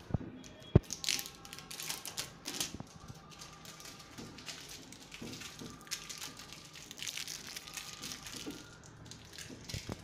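Plastic protective wrap crinkling and rustling as it is handled on a new refrigerator, in irregular bursts, with a sharp click about a second in.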